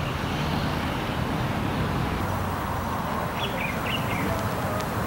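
Steady outdoor street noise with traffic, and a few faint high chirps about three and a half seconds in.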